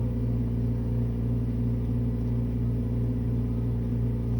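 Steady low electrical hum with a stack of even overtones and no change in pitch or level; no other sound stands out over it.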